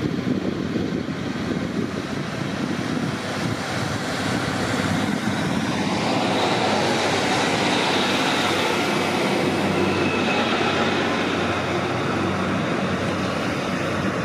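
Two-car Class 155 diesel multiple unit running past on the rails, its engines and wheels growing louder as it approaches and at their loudest as it goes by, roughly midway, with a faint high tone over the noise.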